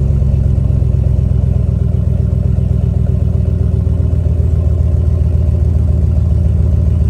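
2021 Ram 1500 Rebel's 5.7-litre Hemi V8 idling steadily through a muffler-delete exhaust, still cold from a cold start, with a deep, low exhaust note.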